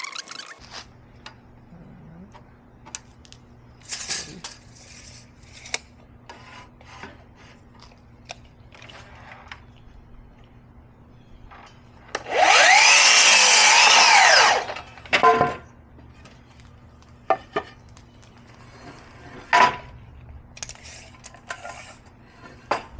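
A power saw cutting wood once for about two and a half seconds, its pitch rising and then falling as it spins up and winds down. Scattered knocks of wood being handled come before and after it, over a steady low hum.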